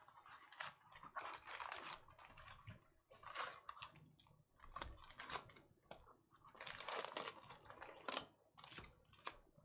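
Trading card packs and cards being handled and opened: faint crinkling of wrappers and quick clicks of cards, in short clusters.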